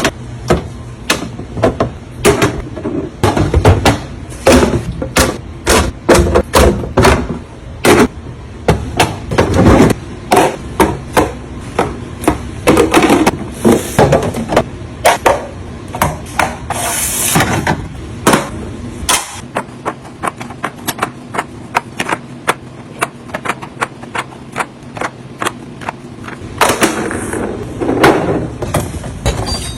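Containers and food items clacking and knocking as they are handled and set down while restocking a fridge, in quick irregular strikes. The knocks thin out for several seconds past the middle, then pick up again near the end.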